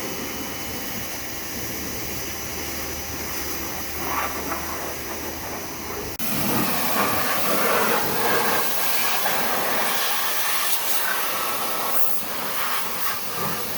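Pressure washer running and spraying, a steady loud hiss with a machine hum under it. About six seconds in it cuts abruptly to a louder, rougher spray noise.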